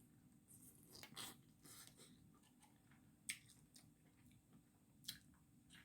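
Faint, scattered clicks and crackles of Dungeness crab being eaten: shell handled and picked at, with mouth sounds, about a second apart at most.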